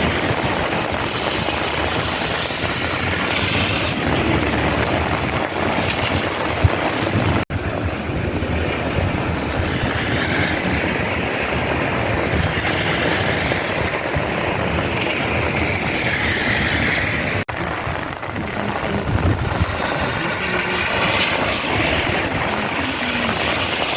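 Heavy monsoon downpour: a loud, steady rush of rain with wind buffeting the microphone, cutting out for an instant twice.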